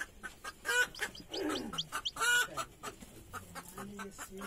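Desi (native) chickens clucking in short separate calls, the loudest about a second in and again about two seconds in.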